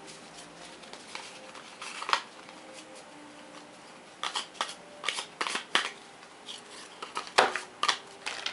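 Cardboard board-game island tiles being shuffled by hand: irregular soft clacks and rustles, sparse at first and busier in the second half.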